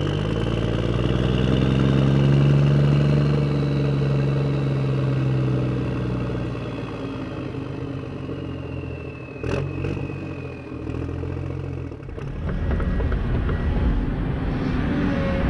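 Simulated truck engine sound from the sound-effect module on a Huina 1573 RC dump truck, revving up and settling back down, with a faint high whine falling slowly in pitch. A couple of sharp clicks come about nine and a half seconds in, then a rougher, rattling run near the end.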